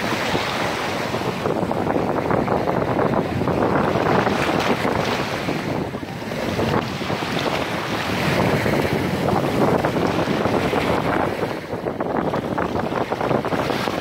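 Small sea waves breaking and washing in the shallows, with wind buffeting the microphone. The noise swells and eases every few seconds.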